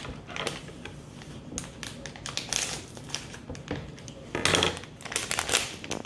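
Plastic bag of a Lego character pack crinkling as it is handled and opened, in irregular rustles with louder bursts near the end.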